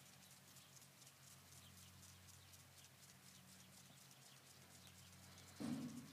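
Near silence: faint outdoor room tone with a steady low hum and light ticking, broken by one brief, louder sound about five and a half seconds in.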